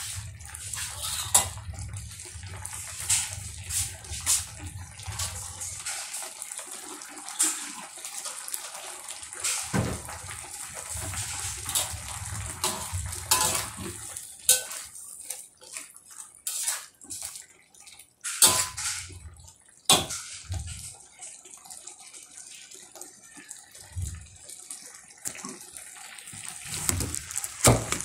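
Oyster-sauce gravy with egg and greens simmering and bubbling in a metal wok over low heat, with sharp clinks and scrapes of a metal fork stirring against the wok.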